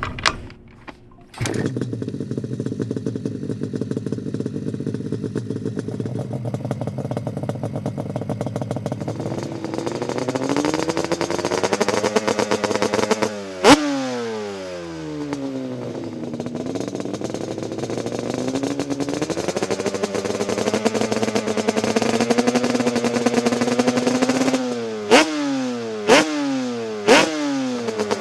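Small motorbike engine starting up and running, revved up and down by hand. Its pitch climbs and falls with the throttle, with one loud sharp pop in the middle and three more near the end on quick blips of the throttle.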